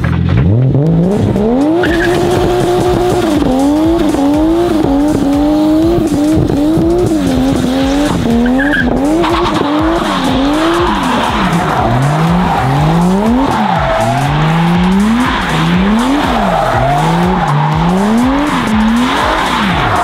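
Toyota Chaser JZX100 Tourer V's turbocharged 1JZ straight-six revving hard through a burnout and donuts, its revs climbing at first and then rising and falling again and again. The rear tyres squeal over it, louder from about nine seconds in.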